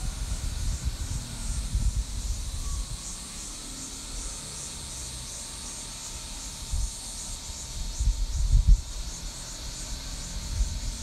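Insects chirring in a steady, evenly pulsing chorus, with irregular gusts of wind rumbling on the microphone, strongest about eight seconds in.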